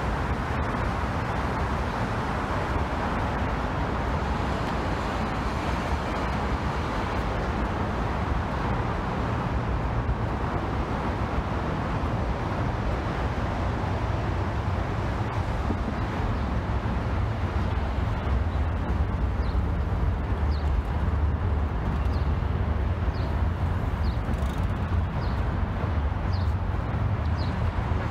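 Steady road traffic noise with a low rumble. In the second half a bird repeats a short high chirp about once a second.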